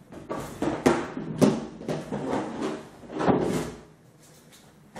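Handling of a lidded toy storage box: several sharp knocks over the first two seconds as the lid is shut and the box is picked up, then a longer, heavier knock and scrape a little after three seconds as it is set down on the floor.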